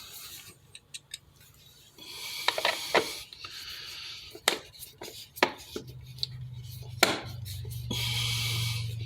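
Hand-work on a wall switch being fitted back into its electrical box: scraping and rubbing, with several sharp clicks of metal and plastic parts and screws. A low steady hum comes in about six seconds in.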